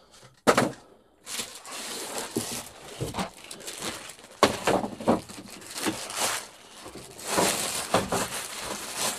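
Clear plastic packaging bag crinkling and rustling irregularly as it is pulled off and handled, after a short knock about half a second in.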